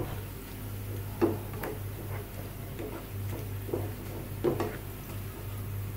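Plastic slotted spatula knocking and scraping against a nonstick frying pan while fried onions and whole spices are stirred, giving a few irregular light taps.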